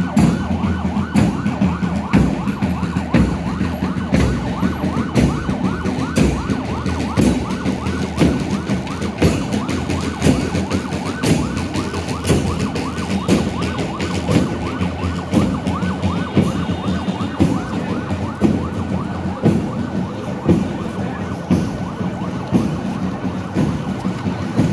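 A siren sounding a fast warble, rising and falling several times a second without a break, over frequent drum thumps from a marching band's bass and snare drums.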